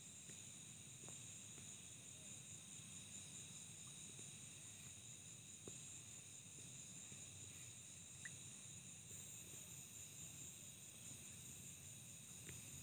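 Faint, steady chorus of night insects in high, even trills, with a few small clicks.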